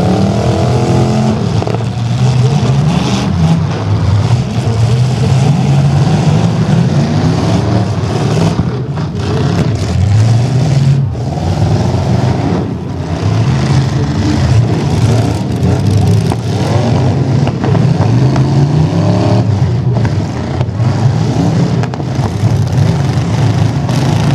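Pickup trucks' engines revving hard and running flat out, the pitch rising and falling over and over as several trucks accelerate and back off at once.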